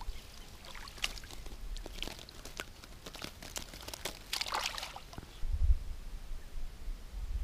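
Small water splashes and light clicks as a freshly caught fish is handled into a wire mesh fish basket at the water's edge, with a larger splash about four and a half seconds in.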